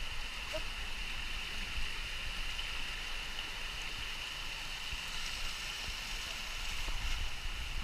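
Steady rushing of water, an even, unbroken noise with a constant high hiss.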